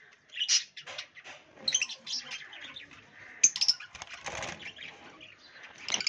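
Budgerigars giving short, sharp chirps several times, with a flurry of wing flapping about four seconds in.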